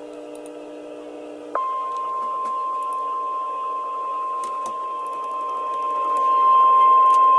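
NOAA Weather Radio 1050 Hz warning alarm tone: a single steady high tone that comes on suddenly about a second and a half in and gets louder near the end, over radio hiss and a faint low hum. The tone signals that a warning broadcast is about to follow.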